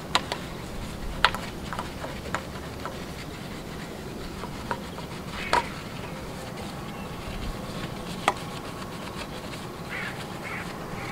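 A few sharp clicks and taps, spread irregularly over several seconds, against a steady background hum; a faint steady tone comes in near the end.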